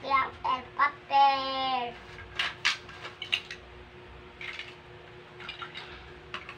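Large plastic Lego bricks clicking and clattering against one another as a child rummages through a pile of them, a string of short knocks after about two seconds. A voice is heard in the first two seconds.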